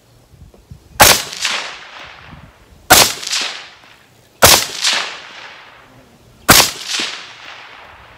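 Four rifle shots from a Fort Mills Firearms FMF15 piston-driven AR-15 in 5.56 with an 11.5-inch barrel, firing 77-grain match ammunition. The shots come about one and a half to two seconds apart, and each trails off over about a second.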